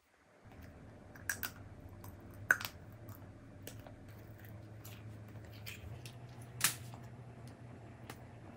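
Close-up mouth and handling sounds of a strawberry-shaped gummy candy: soft sticky squishes and scattered sharp clicks, the loudest about two and a half and nearly seven seconds in, over a low steady hum.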